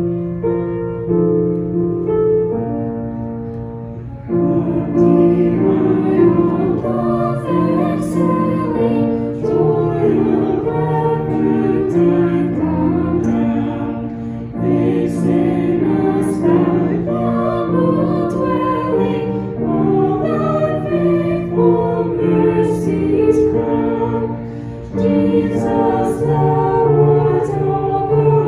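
Worship song: a short instrumental introduction, then voices singing together with keyboard or piano accompaniment from about four seconds in.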